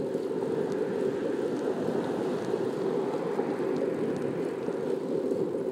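Steady rushing noise of a bicycle being ridden: tyres rolling on a smooth asphalt bike path.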